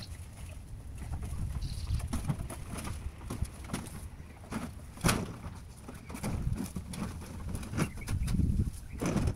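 Long sheet-metal valley flashing being pushed up and slid over roof tiles: irregular scraping and knocking, with the sharpest knock about five seconds in.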